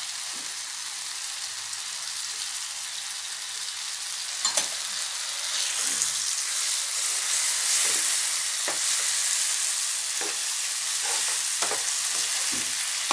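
Soaked dal frying and spluttering in hot oil in a pan of onion-tomato masala, while a steel spoon stirs and scrapes it with occasional clicks against the pan. The sizzle grows louder about halfway through; the crackling comes from the water still held in the soaked dal.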